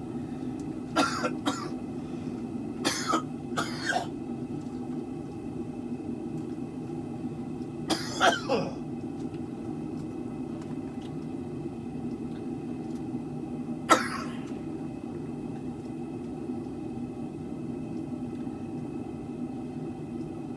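A man coughing and clearing his throat in short bouts, a cluster in the first few seconds, another about eight seconds in and a single one near fourteen seconds, over a steady low hum.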